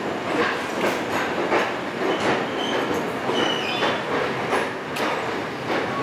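Electric multiple-unit (MEMU) train running along a station platform, heard from on board: steady rolling noise with rhythmic wheel clacks over rail joints, about three every two seconds.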